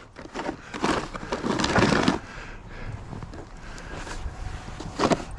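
Snow crunching and scraping in three short noisy strokes, the loudest about a second in and about two seconds in, then a quieter patch with a sharp scrape near the end.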